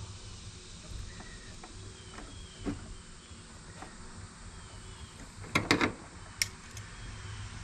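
Small handling sounds of a plastic fuel hose and pump, then a quick cluster of sharp metallic clacks a little past halfway, with one more shortly after, as pliers are picked up off an aluminium diamond-plate truck bed.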